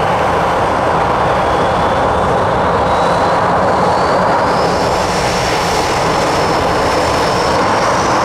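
Boeing 737-800's twin CFM56 turbofan engines spooling up to takeoff thrust on the takeoff roll: a loud steady roar with a high whine that climbs slowly in pitch.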